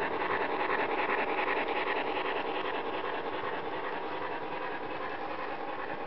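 Model train rolling past on the layout track: a steady rolling noise with fine rapid clicking from the wheels, loudest about a second in and slowly fading as the cars move away.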